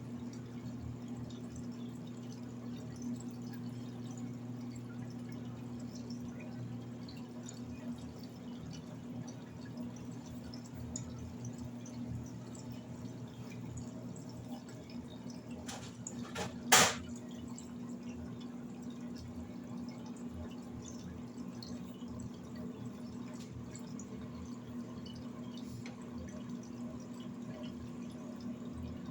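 Electrolux LED14 washing machine mid-cycle: water dripping and trickling inside the machine over a steady low hum, with one sharp click about seventeen seconds in.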